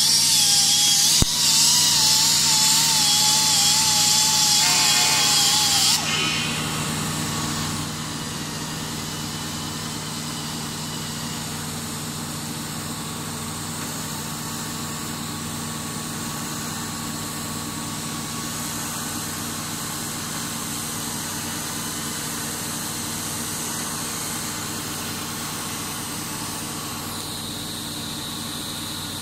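TIG welding: the welding arc and machine running with a steady hum. For the first six seconds a loud hiss with a wavering whine sits on top, with a click about a second in. The hiss then stops and the quieter hum carries on.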